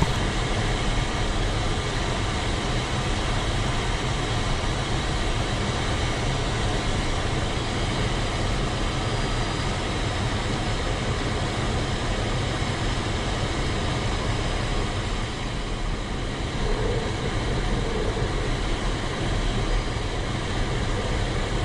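Steady rushing airflow noise inside the cockpit of an ASW 20B sailplane gliding in flight, heaviest in the low rumble. The glider has no engine, so this is the sound of air passing over the canopy and fuselage.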